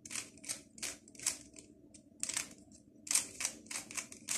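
3x3 speedcube being turned quickly by hand: a rapid run of sharp clicking layer turns, about a dozen, with a short pause a little before halfway.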